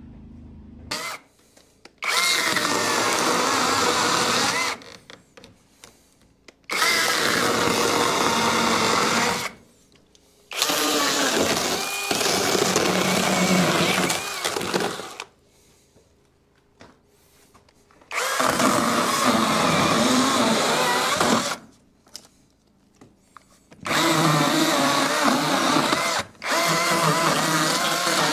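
Handheld power saw cutting into an old log wall in six separate runs of two to five seconds each, stopping briefly between runs, as rot-damaged sections of the logs are cut out.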